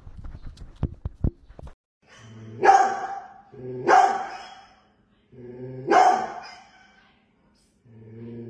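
Large dog barking: three loud, drawn-out barks a second or two apart, starting about two seconds in, with a fourth beginning at the very end. Before the barking, a few short knocks and clicks.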